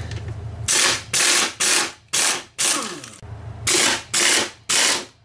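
Impact wrench hammering in short bursts, about eight in quick succession, as it loosens the bolts that hold a lawn mower engine to its deck.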